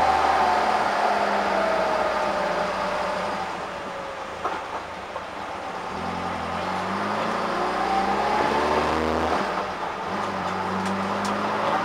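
Peugeot 106 GTi's 16-valve four-cylinder engine on Jenvey throttle bodies, heard from inside the cabin at low speed. The engine note falls as the car slows and eases off, then rises again about six seconds in as it picks up and drops back near ten seconds.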